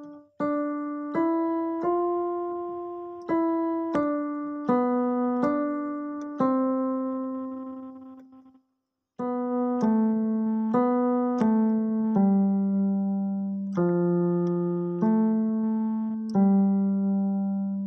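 Slow solo piano melody played one note at a time, each note ringing and fading. It stops for a moment about halfway, then carries on lower and settles on a long, held low note near the end.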